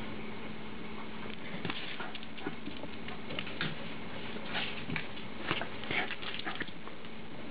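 A small dog's claws clicking and pattering on a tile floor as it runs after a tennis ball, in an irregular run of light clicks that grows busier about four and a half seconds in.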